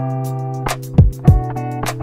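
Background music with a steady drum beat: kick drum and high percussion ticks over sustained chords and a held bass note.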